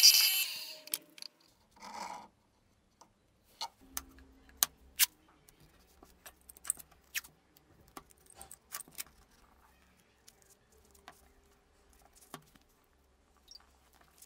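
An electric drill runs for the first half-second and cuts off. It is followed by scattered light clicks and taps, several close together in the middle, as wooden handle scales and a roll of masking tape are handled on a wooden workbench.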